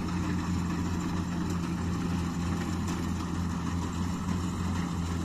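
Kubota DC-60 rice combine harvester's diesel engine running steadily, a constant low drone.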